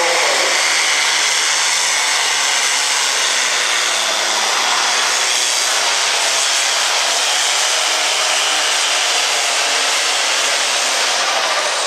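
Heavy super stock pulling tractor's turbocharged diesel engine running flat out under full load as it drags the sled, a steady loud roar with a high turbo whine. Near the end the whine falls in pitch as the engine comes off load.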